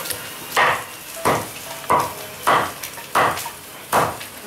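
Cleaver chopping a charcoal-grilled duck on a chopping board: six evenly spaced strokes, about one every two-thirds of a second.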